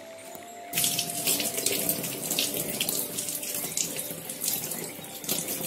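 Tap water running into a stainless steel kitchen sink, starting about a second in, splashing as money plant cuttings' roots are rinsed under it by hand.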